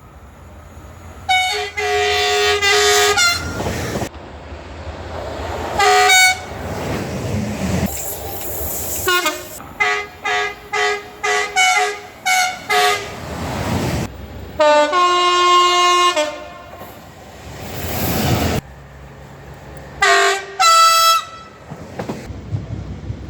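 British train horns sounding in a series of blasts: a few longer blasts and a rapid string of short toots. The rumble of passing trains runs between them, and each snippet starts or stops suddenly where the clips are cut together.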